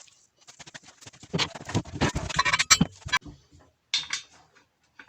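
Metal parts of a home-made chop saw knocking and clattering as they are handled and test-fitted together, a quick run of light clicks and knocks that is busiest in the middle.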